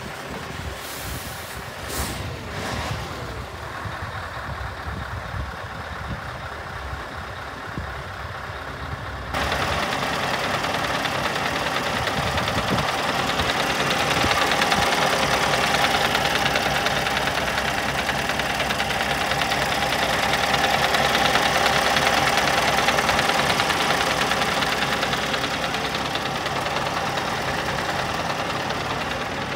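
Scania R520's V8 diesel engine idling steadily with a light diesel clatter. About nine seconds in it becomes suddenly louder and clearer, heard close up at the open engine bay under the tilted cab.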